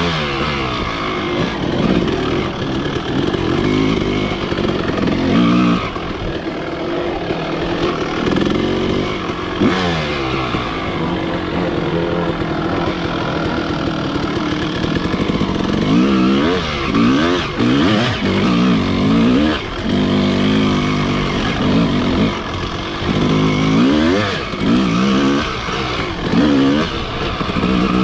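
Two-stroke dirt bike engine revving up and down with the throttle while riding, steadier for a few seconds midway and then in quick repeated up-and-down revs over the last third.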